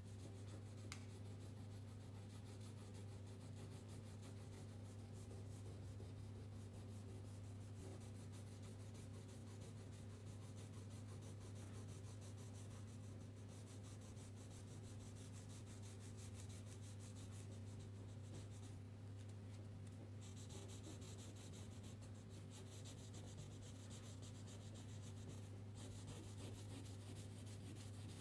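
Faint, quick scratching of coloring strokes on paper as an area is shaded in back and forth, over a steady low hum. The scratching is a little stronger for a few seconds about two-thirds of the way through.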